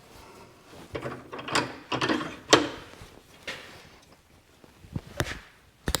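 A series of separate metal clunks and knocks as hydraulic cylinder parts are handled and clamped in a bench vise.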